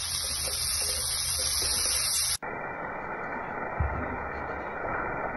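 Chopped onions frying in oil in a metal kadai: a steady sizzle as they are stirred with a spatula. A light knock about four seconds in; the high hiss cuts out abruptly about halfway through.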